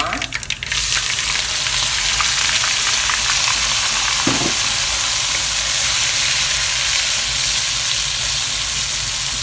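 Wet blended onion, garlic and ginger paste hitting hot oil in a wok. A loud, steady sizzle starts about a second in and keeps going while a wooden spatula stirs the paste.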